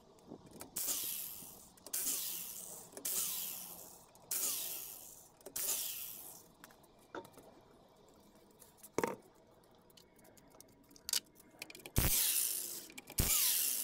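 Hydraulic floor jack pumped by its long handle, about five strokes, each giving a short hissing whoosh. A few sharp metal clicks follow, then near the end a corded electric impact wrench runs in short loud bursts on a wheel's lug nuts.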